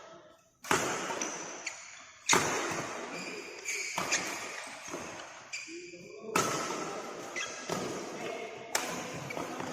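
Four loud thuds that ring out in a large echoing room, with short high squeaks between them. The uploader wonders whether the squeaks are giggling or shoes rubbing on the floor.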